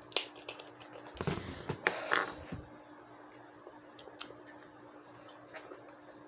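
A person drinking sparkling water: a click, then about a second and a half of gulping and container-handling noises with a brief fizzy hiss, followed by faint scattered ticks.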